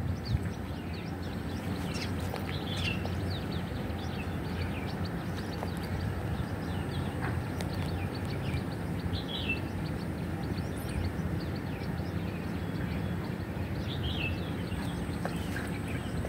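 Steady low outdoor rumble with a faint hum, and a bird chirping briefly three times: about three seconds in, near the middle, and near the end.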